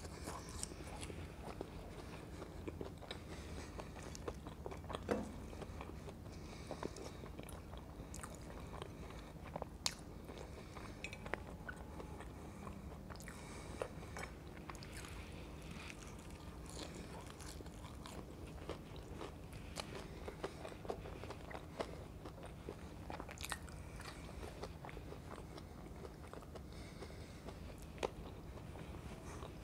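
Close-miked eating of crispy French fries: irregular biting and crunching with chewing, and a few sharper crunches along the way.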